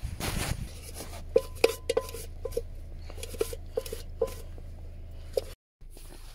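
Metal camping cookware clinking: a dozen or so short, ringing clinks of a pot and utensils knocking together as they are handled after the pot is wiped out.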